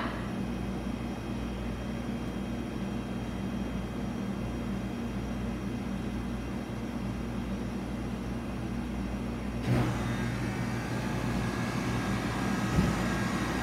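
Steady low mechanical hum made of several low tones, with a sharp knock about ten seconds in, after which the hum is slightly louder, and a softer knock near the end.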